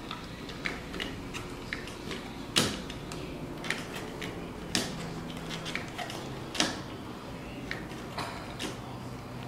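Hand pop-rivet gun being squeezed on a pop rivet: a run of irregular metallic clicks, the sharpest about two and a half, five and six and a half seconds in.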